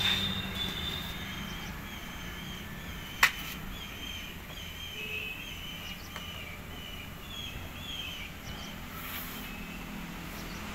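Small birds chirping in short, wavering calls in the background over a low steady hum, with a single sharp click about three seconds in.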